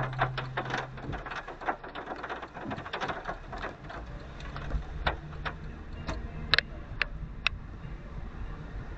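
Raindrops tapping irregularly on a hard surface over a low rumble. The drops come thick at first, then thin out after about four seconds to scattered single drops.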